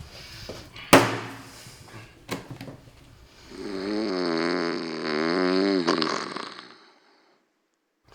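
A sharp click, then a second smaller one, then one long, loud, wavering snore lasting about three seconds. It is a recording of a man snoring being played back, and it cuts off abruptly into dead silence.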